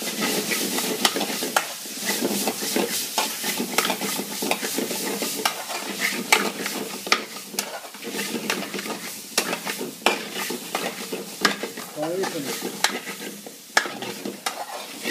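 Curry frying and sizzling in a metal frying pan over a gas burner as it is stirred, with a quick, irregular run of sharp clicks and scrapes against the pan.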